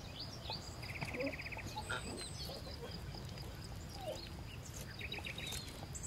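Outdoor garden ambience: small birds chirping, with a quick even trill about a second in and another near the end, over a steady low background rumble.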